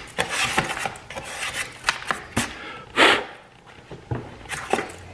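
Hand brushing and scraping loose dirt out of an ATV's plastic battery tray: a string of rubs and scrapes with small knocks, the loudest scrape about three seconds in.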